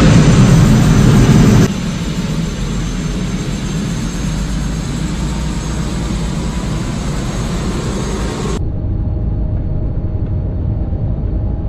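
Helicopter turbine engine and rotor running on the ground, heard from inside the cockpit as a loud, steady rushing noise with a faint whine. The sound drops in level suddenly about two seconds in and turns duller about three seconds before the end.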